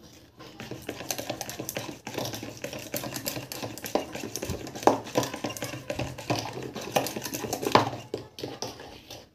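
Push-down spinning wire whisk beating creamed ghee and sugar in a bowl, its loops clattering against the bowl in a fast, uneven run of clicks as the baking powder is mixed in.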